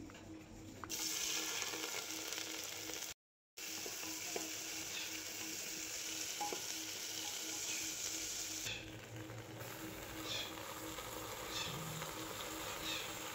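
Sliced onions sizzling in hot oil in an aluminium pressure cooker, stirred with a wooden spatula that scrapes the pot now and then. The sizzle starts about a second in and drops out briefly a few seconds later.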